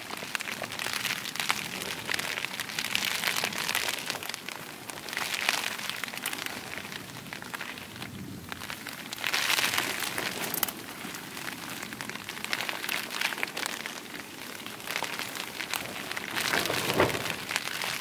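Rain and gusting wind on a French Army F1 canvas tent: a steady patter of drops, with the wind swelling in gusts every few seconds, the strongest near the end.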